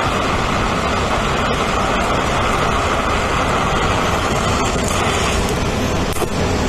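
DC TIG welding arc on a steel plate, with a tungsten electrode on straight polarity: a steady hiss that stops about five seconds in. The arc is fusing the plate without filler to form a weld puddle.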